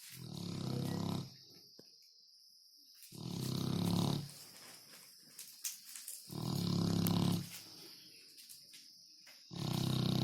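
Dog snoring loud: four long, low buzzing snores, each lasting about a second, coming about every three seconds in a steady breathing rhythm.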